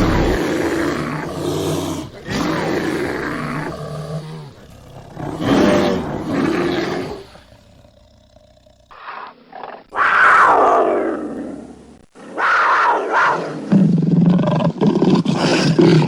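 Designed lion roar sound effect built from bear, cougar and jaguar growls, heavy Tibetan blue bear growls among them: a run of deep roars and growls. After a brief lull, a loud roar falls in pitch about ten seconds in, followed by several roars in quick succession.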